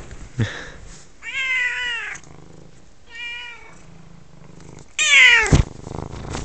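F2 Savannah cat meowing for attention: three calls, each falling in pitch, the last and loudest about five seconds in. A short thump comes about half a second in.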